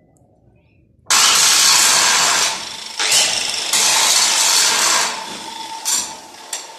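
Angle grinder with an abrasive disc grinding on a steel-tube frame. The loud, harsh grinding starts suddenly about a second in and dips briefly twice. After about five seconds it eases to the grinder running with a steady whine, with a couple of short knocks near the end.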